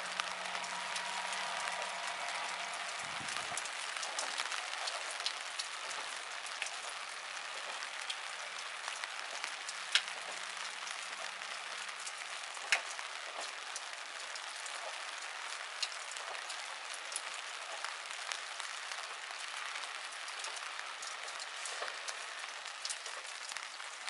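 Steady rain hissing down, with occasional sharper drips close by. A faint low engine hum from a departing diesel railcar dies away about three seconds in.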